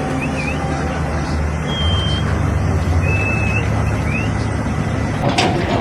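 Heavy engine running steadily with a low rumble, with a few short, high chirps or squeaks over it and a brief sharp clatter near the end.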